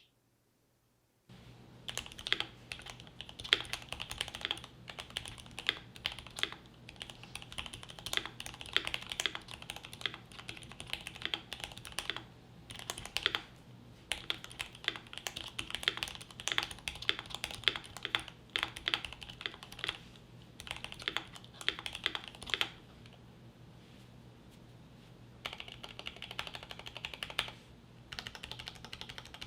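Typing on an Akko Mod 3 gasket-mount aluminium keyboard fitted with Gateron Ink Black V2 linear switches lubed with 205g0 and GMK keycaps: a quick, steady run of keystrokes that starts about a second in. The typing stops for a couple of seconds about three-quarters of the way through, then resumes.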